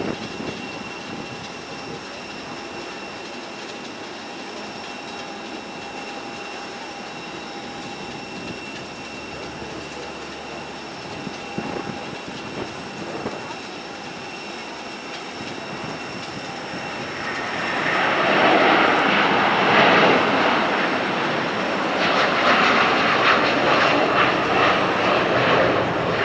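Airbus A330-300 jet engines on a departure: a steady distant hum with a thin whine for the first part, then the noise of the twin engines at takeoff power swelling about seventeen seconds in and staying loud.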